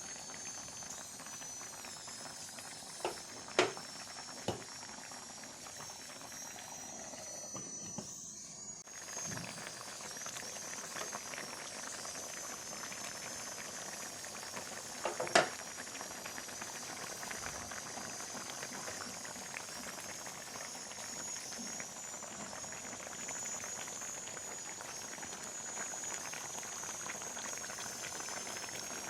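Fish curry boiling in a pot on a gas stove, a steady bubbling and crackling. A few sharp knocks come about three to four seconds in and once more about fifteen seconds in.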